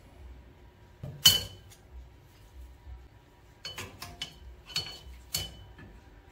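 A steel hand tool clinking against the springs and hardware of a drum brake assembly: one sharp metallic clink about a second in, then a quick run of lighter ringing clinks near the end.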